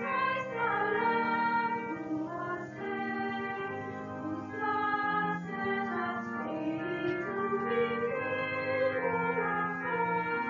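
A 1956 church organ playing a slow hymn in held chords that change about once a second, with voices singing along.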